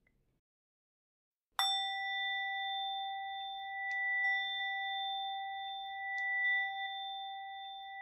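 Near silence for about a second and a half, then a singing bowl struck once, ringing on steadily with a slow swell and fade in its tone.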